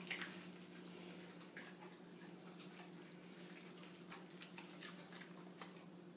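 Faint wet smacking and clicking of a dog chewing raw meat, irregular and scattered, over a steady low hum.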